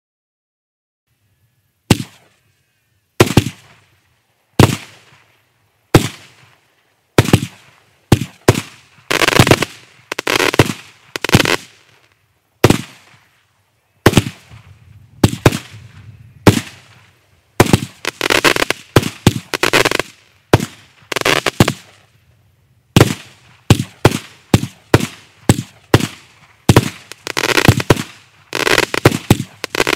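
Kimbolton Razzle Dazzle 49-shot, 20 mm firework cake firing, starting about two seconds in. The first bangs come singly, about a second and a half apart, then faster in quick clusters, with crackling stars fizzing after several of the bursts.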